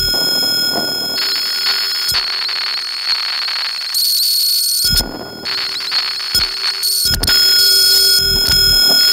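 Experimental electronic music played on analog modular synthesizers: several steady high whistling tones held over blocks of hiss that cut in and out abruptly, with a few short low thuds. It gets a little louder about seven seconds in.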